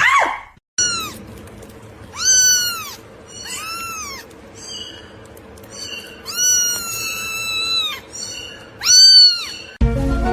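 A cat meowing again and again, about six high-pitched meows that rise and fall in pitch, the longest drawn out for nearly two seconds.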